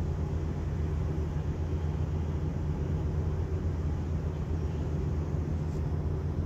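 Steady low machinery hum in a ship dry dock, holding an even pitch with no breaks.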